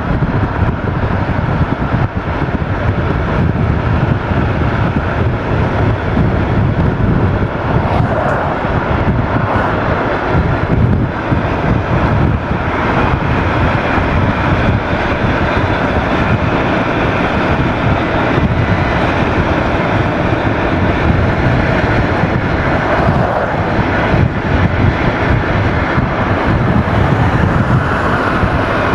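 Steady road and engine noise of a car driving at speed, a constant rumble and hiss with no distinct events.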